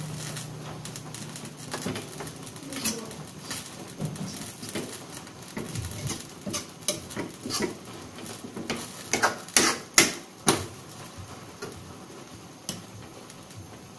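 Spatula scraping and tapping against a cooking pan as malunggay leaves are stirred: irregular clicks and scrapes, with a few louder knocks about nine to ten and a half seconds in.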